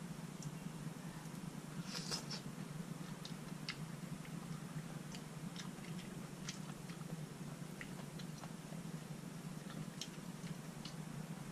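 Quiet eating sounds: chopsticks and a plastic spoon clicking and scraping in a bowl of malatang soup, with scattered small ticks and chewing, over a steady low hum.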